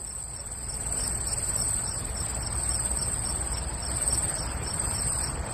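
Crickets chirping steadily over a faint low rumble, swelling in over the first second: the stock "crickets" effect for an awkward silence after a joke falls flat.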